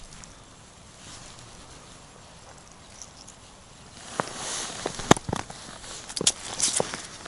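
Hands unhooking a small perch from a jig, with faint rustling of winter clothing. From about four seconds in come a run of sharp clicks and light knocks as the fish and tackle are handled.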